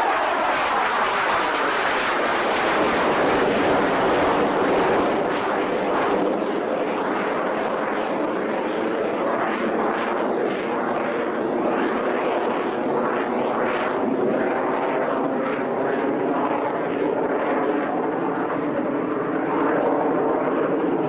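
Jet noise of a de Havilland Sea Vixen's twin Rolls-Royce Avon turbojets as the aircraft passes low overhead, the pitch dropping in the first couple of seconds. It then settles into a steady, loud jet sound as the aircraft flies away.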